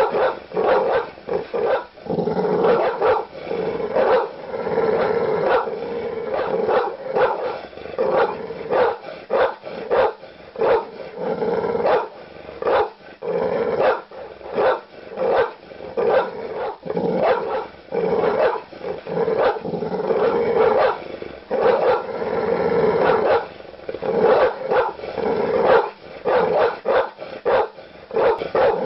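Large dogs barking aggressively, deep loud barks in quick, continuous succession with growling between them.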